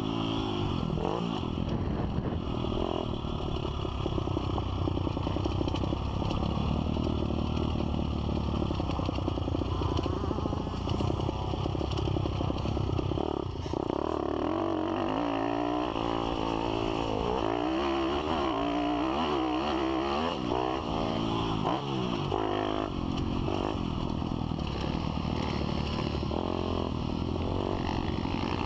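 Pit bike's single-cylinder four-stroke engine heard on board while riding a dirt track, its pitch rising and falling again and again as the throttle opens and closes.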